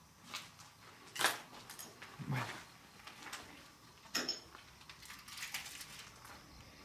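Irregular footsteps crunching on rough ground, a few separate crisp steps over a low background hiss.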